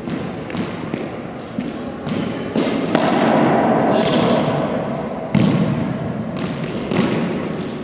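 Racquetball rally: a quick series of sharp smacks of the hollow rubber ball off racquet, walls and floor, about a dozen in all, each ringing with the echo of the enclosed court.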